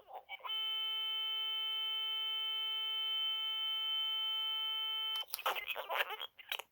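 A glitching Furby's speaker holds one steady, unchanging electronic tone for about four and a half seconds, then cuts off abruptly into garbled, crackly chatter. The audio glitch comes from the battery compartment being opened and shut while the toy runs.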